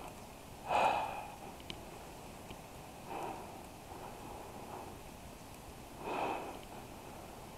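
A person breathing out three times in a slow, even rhythm, one breath every two and a half to three seconds, over faint outdoor background.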